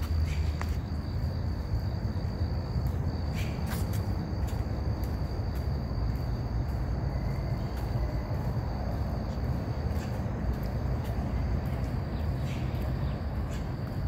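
Outdoor ambience of a steady low rumble, with a high, thin insect drone that fades about three seconds in and scattered light ticks.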